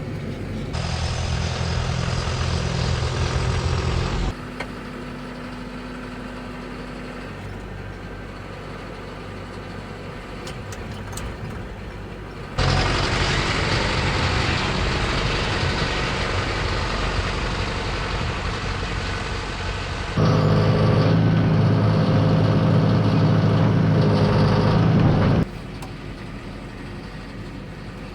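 Tractor's diesel engine running under load while pushing snow, heard across several cut-together shots. The sound jumps abruptly in level at each cut, loudest near the end, where a steady low engine hum dominates.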